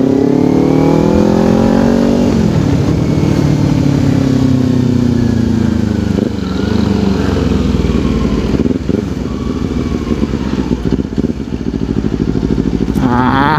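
Kawasaki Ninja 250 parallel-twin engine pulling in gear, heard from the rider's seat; its pitch rises for about two seconds, drops sharply as the throttle is closed, then runs lower and uneven as the bike slows.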